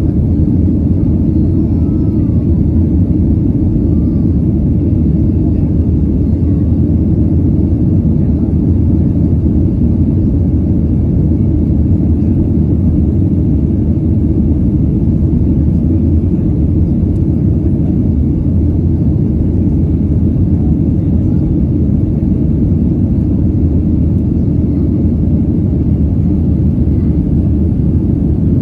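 Steady low rumble inside the cabin of a Southwest Airlines Boeing 737 climbing out after takeoff: the jet engines at climb power and the rush of air over the fuselage, heard from a window seat.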